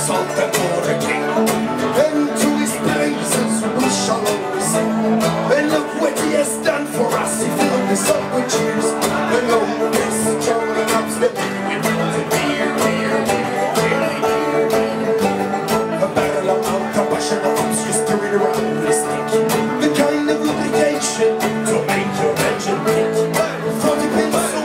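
Live folk band playing an upbeat Irish folk tune on acoustic and electric guitars.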